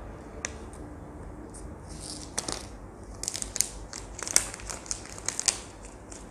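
Clear plastic shrink-wrap being peeled and pulled off a smartphone box by hand, crinkling with sharp crackles that come thick and fast in the second half.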